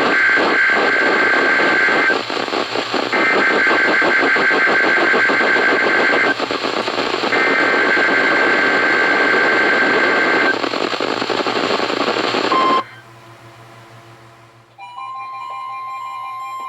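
Three bursts of the Emergency Alert System SAME header, a raspy buzzing data screech, each about three seconds long with a short gap between, over the hiss of a weak NOAA Weather Radio signal. The hiss cuts off abruptly about 13 seconds in, and about two seconds later a weather radio receiver's electronic alarm starts, a steady tone.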